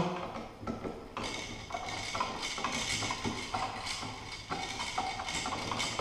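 Small irregular clicks and knocks of a wall light switch and its wires being handled and fitted into an electrical wall box.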